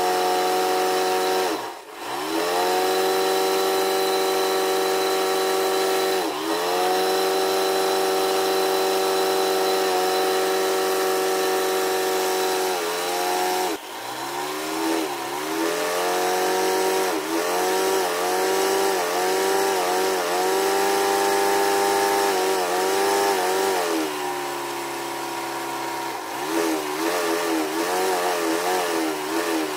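A motor or engine running steadily. Its pitch dips and recovers several times, then wavers up and down through the second half.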